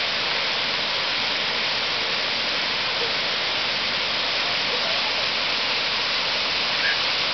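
Waterfall pouring over a wide, low rock ledge into a pool: a steady, even rushing of falling water.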